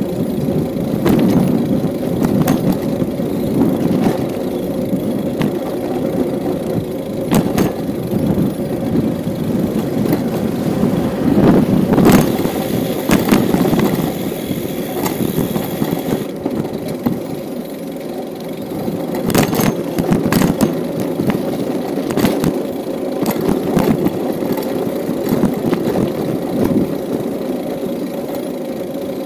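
Steady rumble of a bicycle ride on asphalt, with wind on the microphone and tyre noise, broken by frequent short rattles and clicks from the bike.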